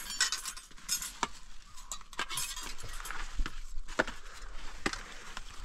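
Irregular light clinks and taps of dishes and utensils, a dozen or so sharp strikes spaced unevenly over a light background hiss.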